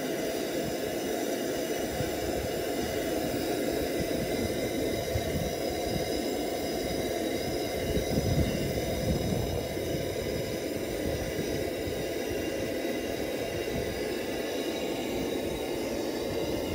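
Lanz Bulldog's single-cylinder hot-bulb two-stroke engine running steadily, freshly overhauled and tuned.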